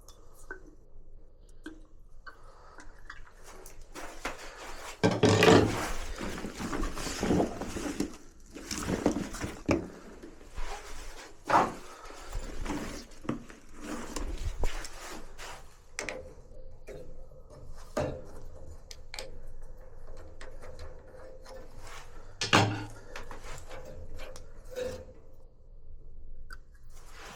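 Irregular knocks, clicks and rustling of hands handling objects and parts, with a louder, noisier stretch about five seconds in.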